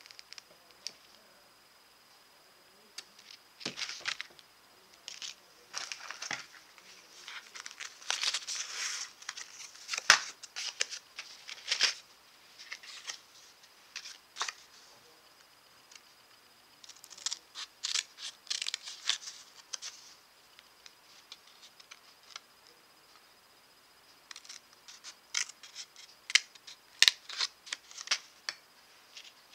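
Scattered clicks, scrapes and rustles of small jewelry parts being worked by hand with pliers, coming in clusters with short quiet gaps between.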